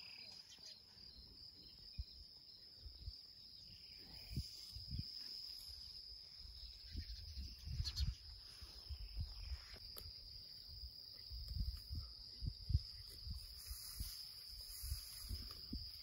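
Insects chirring steadily at one high pitch, with irregular low bumps and thumps on the microphone from about four seconds in.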